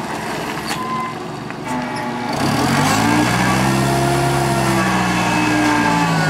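Clark forklift's engine running low for the first two seconds, then revving up about two seconds in and holding a steady higher speed while the mast lifts the forks.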